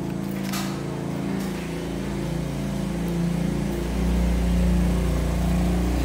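A steady low engine hum that grows louder about four seconds in. About half a second in there is a brief crackle, likely cardboard tearing as the puppy chews the box.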